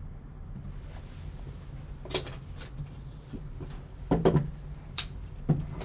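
Hands handling sports card box packaging: a few sharp clicks and knocks, loudest about two seconds in and again around four to five seconds in.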